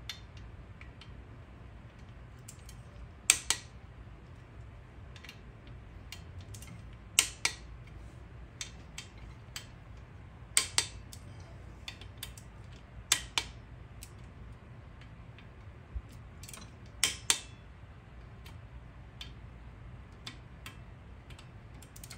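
Click-type torque wrench breaking over on the camshaft cap bolts of a Kawasaki KFX 400 cylinder head: a sharp double click about every three to four seconds, five times, each marking a bolt reaching the set torque. Lighter ticks of the socket and wrench come in between.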